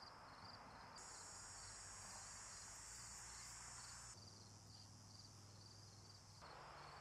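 Faint outdoor ambience of crickets chirping in a steady pulsing rhythm, several chirps a second. A higher, steady insect hiss joins from about a second in to about four seconds, and again near the end.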